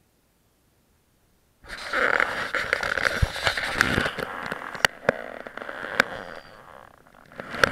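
Close rustling and handling noise with sharp clicks and knocks as the camera is moved about inside the ice-fishing shelter, starting suddenly about a second and a half in and easing off near the end.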